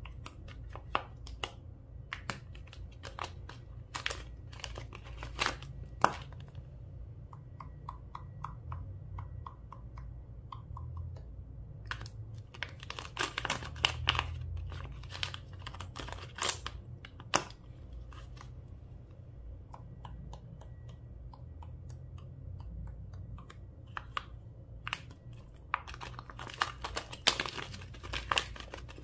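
Slime being kneaded, stretched and pressed by hand, giving sticky clicks, pops and crackles in irregular clusters. The clusters are densest in the middle and near the end.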